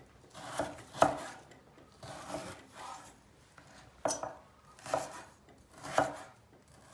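Chef's knife slicing through frozen chicken breast and knocking on an end-grain wooden cutting board, a series of short cuts with a slight rasp, about one every half second to second.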